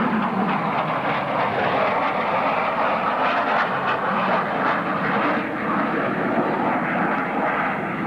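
F-117A Nighthawk's two General Electric F404 turbofans running with a steady jet whine and rush as the stealth fighter goes by.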